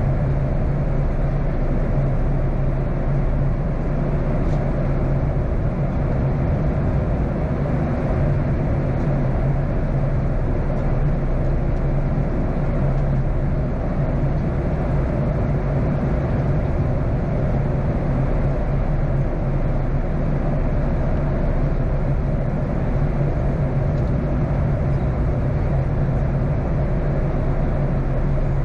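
Steady in-flight cabin noise of a Boeing 737-800 at high speed, heard from a forward window seat: the rush of air over the fuselage and the running of its CFM56-7B turbofan engines, with a steady low hum underneath.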